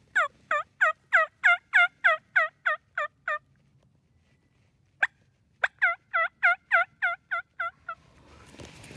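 Turkey call worked by a hunter to imitate a hen turkey's yelping: two runs of evenly spaced, downward-dropping yelps, about eleven notes and then about nine, with a sharp click between the runs.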